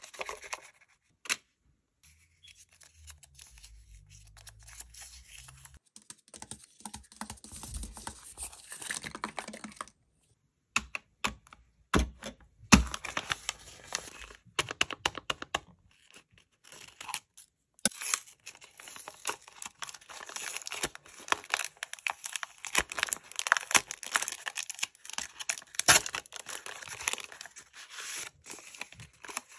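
Sheets of paper rustling, crinkling and tearing as handmade paper blind-bag envelopes are opened and unfolded by hand, in irregular bursts with a few short pauses.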